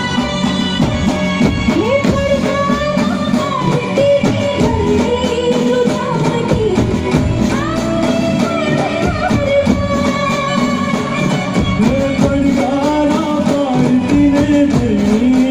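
Live garba folk song from a stage band over loudspeakers: singers with drums keeping a steady dance beat. The singing comes in about a second and a half in.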